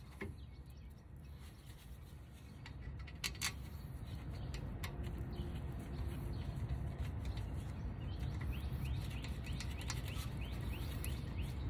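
A few light metal clicks as the brake caliper and its bolt are handled, over a low steady outdoor rumble. Birds chirp repeatedly through the last few seconds.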